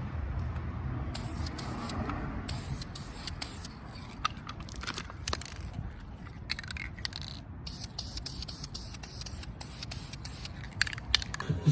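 Aerosol spray paint can spraying in many short, uneven bursts of hiss.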